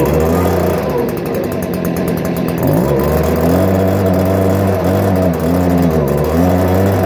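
Stihl BG56C handheld leaf blower's two-stroke engine running and being revved, the pitch rising and falling several times from about three seconds in.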